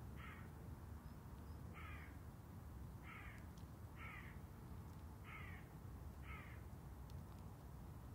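A crow cawing six times, short calls spaced roughly a second apart.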